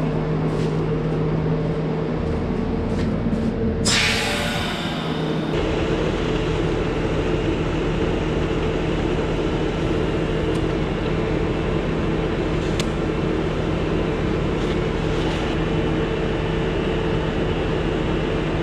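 Steady machine hum from an air compressor, with a short burst of hissing air about four seconds in, as a low skid steer tire is aired up.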